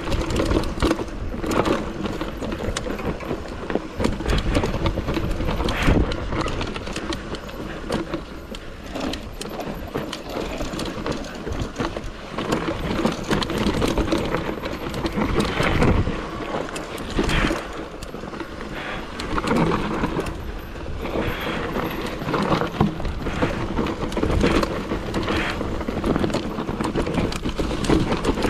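Bike rattling and knocking unevenly over rough trail ground, with rushing wind noise.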